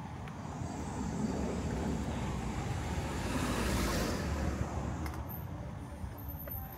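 A car passing by on the road: its tyre and engine noise swells to a peak a little past halfway, then fades away.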